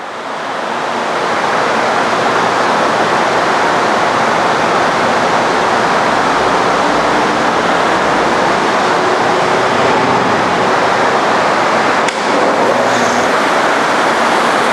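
Forrest Model 230 vertical bandsaw running with its 3/4-inch scallop-edge knife blade at about 3,000 feet per minute: a steady, loud rushing noise. It builds over the first second or two, then holds level, with a brief dip about twelve seconds in.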